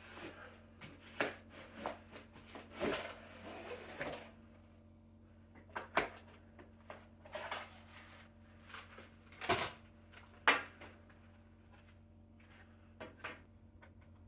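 Inline skate parts being handled and fitted together: a run of clicks, taps and rustling for about four seconds, then scattered knocks, the two loudest about a second apart near ten seconds in.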